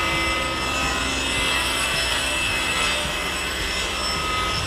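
WTS250LT 10-inch table saw, driven by a 3 hp induction motor, with its blade cutting through a board in one steady cut under a thin high whine. The cut eases off near the end.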